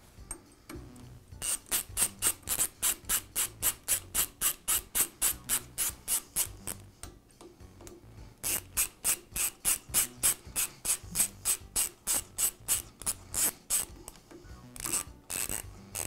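Small ratchet wrench clicking in quick, even strokes, about four a second, while tightening a bolt. There are two long runs of clicks with a short pause about seven seconds in, and a few last clicks near the end.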